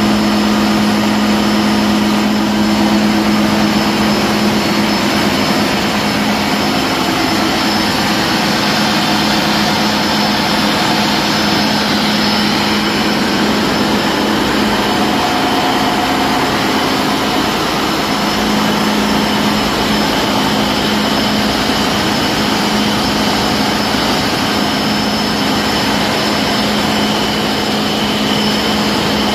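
Twin Mitsubishi S6U marine diesel engines running steadily on a test run after maintenance, filling the engine room with dense, loud mechanical noise. A strong steady hum fades about seven seconds in and returns near the end.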